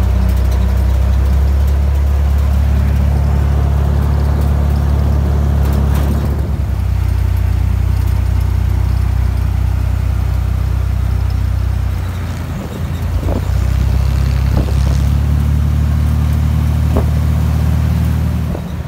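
Flat-fender jeep's engine running under way, heard from the open vehicle with road and wind noise. The engine eases off for about a second near the middle, then pulls again.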